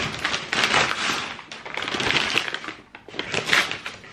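Paper packaging and a cardboard shoe box being handled: rustling and crinkling in crackly bursts, dropping to a lull just before three seconds in and then resuming.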